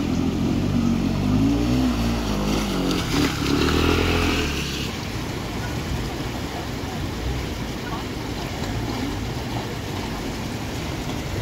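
A vehicle engine revving, its pitch rising and falling, for about the first five seconds, then dropping away into a steady rushing noise.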